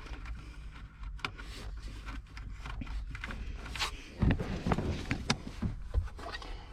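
Rustling, clicks and knocks of hands handling plastic dashboard parts and wiring inside a car, with a few louder thumps about four to six seconds in.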